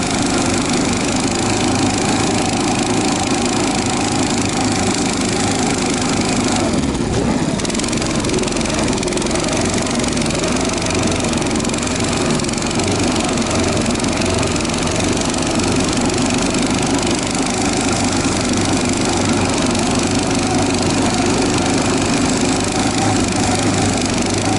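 Albatros motorized snow tow (motosobaka) engine running steadily as it pulls a sled through snow, with a brief dip in the noise about seven seconds in.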